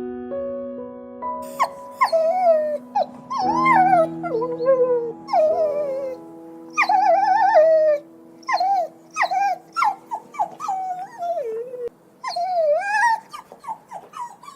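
An animal giving a string of short, high, whining calls that slide up and down in pitch, over soft background piano music.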